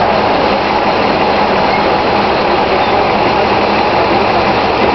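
NABI 416.15 transit bus's diesel engine running close by, loud and steady.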